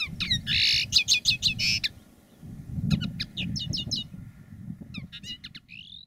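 Common linnet singing: quick twittering phrases of chirps and trills in three bursts with short pauses between, over a low rumble.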